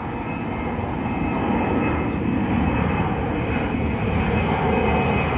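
A fixed-wing airplane's engines running close by, the roar swelling over the first couple of seconds and then holding loud, with a steady high whine over it.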